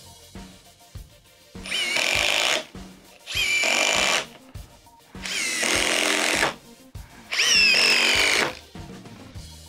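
Cordless impact drivers running in four short bursts of about a second each, each with a motor whine that shifts in pitch, over background music with a steady beat.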